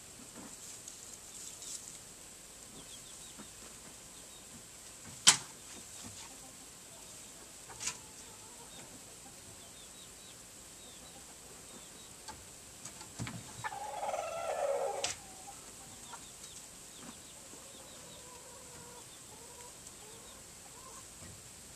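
Chickens clucking, with one louder squawking call lasting about a second and a half a little past the middle, and fainter calls after it. A sharp knock about five seconds in and a softer one a couple of seconds later.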